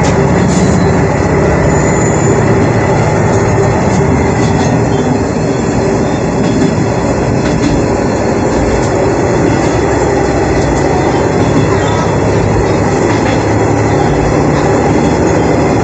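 Shigaraki Kohgen Railway SKR401 diesel railcar running along the line, heard inside the car: a steady diesel engine drone under wheel-on-rail rumble, with a few faint clicks from the track.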